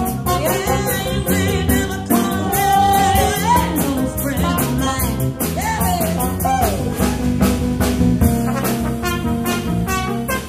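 Live band playing an up-tempo rock-and-roll number: a woman singing into a microphone over electric keyboard and a steady drum-kit beat, with a trumpet.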